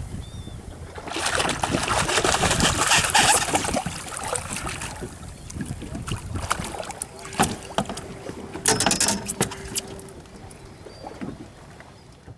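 Water splashing and crackling as a hooked false albacore thrashes at the surface beside the boat and is lifted out by hand; the sound dies away near the end.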